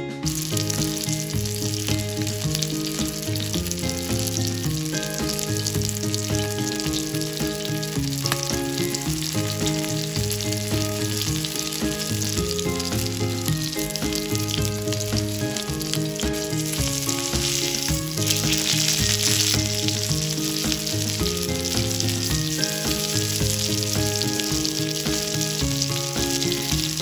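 Masala-coated seer fish (vanjaram) fillet shallow-frying in oil in a cast iron pan over medium heat: a steady dense sizzle and crackle, heaviest a little past the middle. Background music plays underneath.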